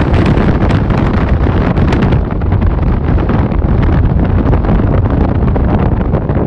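Strong wind buffeting the microphone in a loud, gusty rumble, over the rush of storm waves breaking and washing across a flooded seafront promenade.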